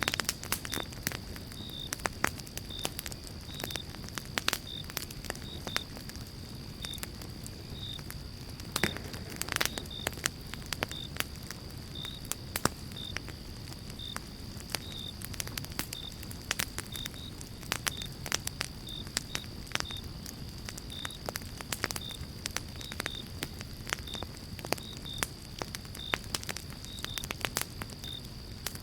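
Fireplace fire crackling: irregular sharp pops and snaps over a low steady rush of flame, with a faint high steady tone behind it.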